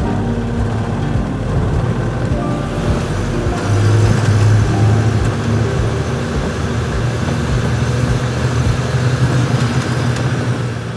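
Van's engine running at low speed as it drives along a ferry's vehicle deck, heard from inside the cab. A low steady hum grows louder about four seconds in.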